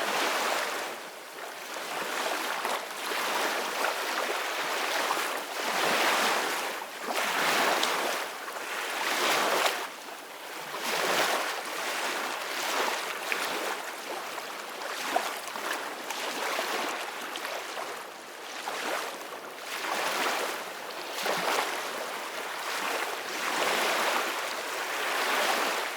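Ocean waves washing onto a beach, a continuous surf hiss that swells and falls every second or two as each wave breaks and runs back.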